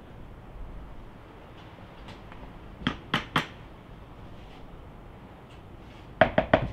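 Hard knocks against an enamel steel bucket: three quick ones about three seconds in, then a faster, louder run of four near the end.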